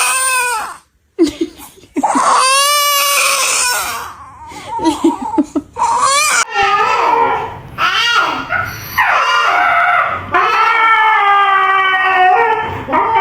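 Loud wailing cries in a series: a short cry at the start, a long wavering wail about two seconds in, choppy sobbing bursts, then longer drawn-out cries that run on near the end.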